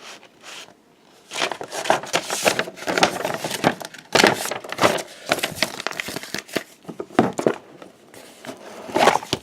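Crinkling and rustling of card-box packaging and paper being handled, in dense irregular bursts that start about a second in and die down near the end.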